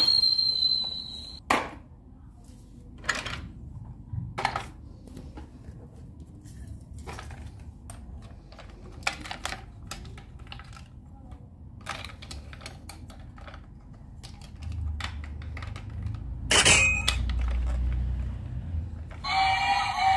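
Plastic clicks and knocks from hands handling a battery-powered toy train around its battery compartment and switch. Near the end the toy switches on and starts playing its electronic tune.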